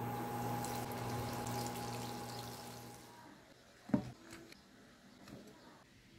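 Chicken pieces sizzling and crackling in hot frying oil, over a steady electric hum. The sizzle gives way about three seconds in, and about a second later a knife chops down once, sharply, onto fried chicken on a wooden board.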